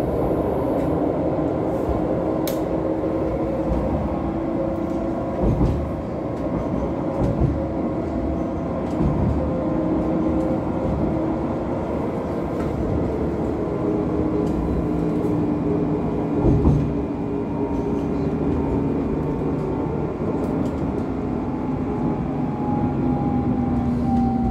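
Running sound inside an Alstom Citadis X05 low-floor tram under way: a steady rumble of wheels on rail with the traction drive's whine, one tone of which falls in pitch near the end. A few brief knocks come through along the way.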